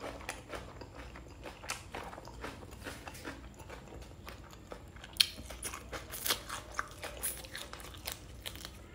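A person chewing close to the microphone: wet mouth smacks and short clicks, more frequent and louder from about five seconds in.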